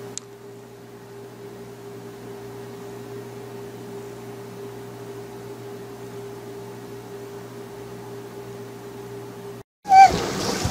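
Steady hum with a fixed mid-pitched tone under an even hiss, which cuts off abruptly near the end. It is followed by a brief high, gliding voice-like sound.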